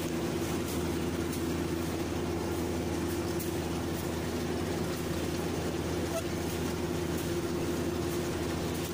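Rice combine harvester engine running steadily, an even drone with no change in speed.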